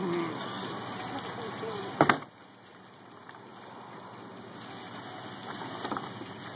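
A yellowfin tuna dropped onto the wooden dock planks: one sharp double thud about two seconds in, with a few light knocks later.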